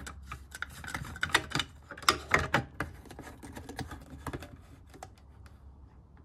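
Irregular light clicks and taps as the top cover of a Stihl 051 AV chainsaw is pressed into place and its fastening knob is worked, denser in the first few seconds and sparser after.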